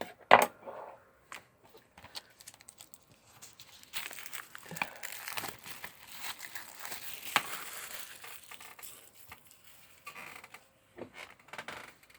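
Plastic wrapping being torn and crinkled off a DVD box set: scattered clicks and crackles, a sharp snap about half a second in, and a long stretch of dense crinkling from about four to nine seconds in.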